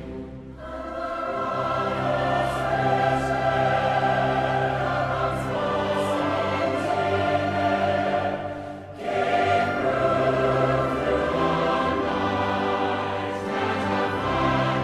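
Music with long held, choir-like notes over an orchestral backing; it drops away briefly about nine seconds in, then comes back.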